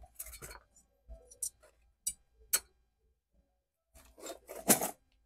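Scattered clicks and rubbing of small parts being handled, with a louder cluster of scrapes about four seconds in.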